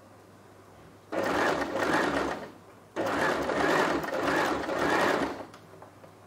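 Electric sewing machine stitching a neckline facing strip onto fabric, in two runs of about one and a half and two and a half seconds with a brief stop between.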